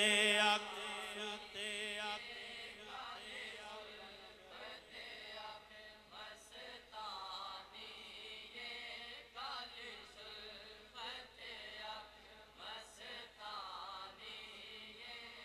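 A man's sung note of a Punjabi devotional kalam fades out about half a second in. After it, a gathering of men faintly chants the verse along in scattered voices.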